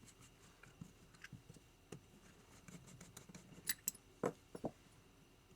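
Faint, scattered clicks and taps of a screwdriver and small metal parts on a motorcycle carburetor being put back together, with a few sharper metallic clicks about four seconds in.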